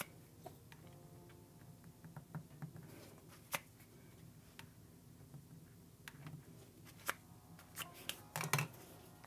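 A plastic scraper card worked over a metal nail-art stamping plate to scrape off excess polish: faint scraping with scattered sharp clicks and taps, the loudest cluster near the end.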